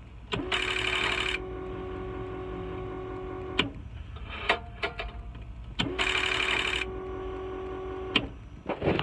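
An electric pump motor of a truck's hydraulic brake system runs twice when the key is turned on, each time for about three seconds. Each run spins up with a short rising whine and a harsher buzz for the first second, then holds a steady hum and stops with a click. Hearing it is the sign that the circuit has power and its fuses and relays are good.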